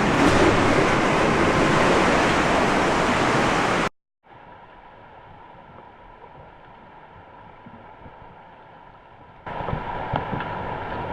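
Wind and sea waves rushing over the microphone, cutting off abruptly about four seconds in. After a brief silence a much quieter, duller stretch of wind and water follows, and the loud rush returns near the end.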